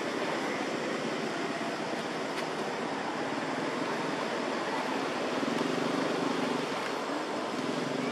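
Steady rushing background noise with no distinct events, like distant traffic.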